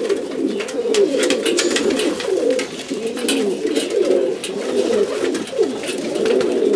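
Macedonian Donek pigeons cooing, several low rising-and-falling coos overlapping without a break, with scattered short clicks and rustles above them.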